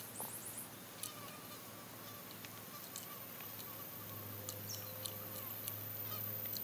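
Quiet eating sounds of noodles being chewed and slurped off a fork, with small scattered clicks. A faint, steady, high insect drone runs underneath.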